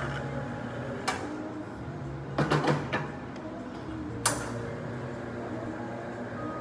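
Metal clacks and knocks from an espresso machine's portafilter being handled: a light click about a second in, a quick run of knocks about two and a half seconds in, and a sharp clack a little after four seconds as the portafilter is locked into the group head.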